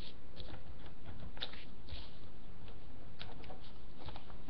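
Pen scratching on paper in short, irregular strokes, over a steady low background hum.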